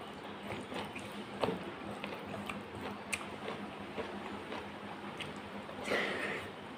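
Eating rice and dal by hand from a stainless steel bowl: soft squishing as fingers knead the rice, scattered small clicks, and chewing. About six seconds in, a brief louder mouth sound as a handful goes into the mouth.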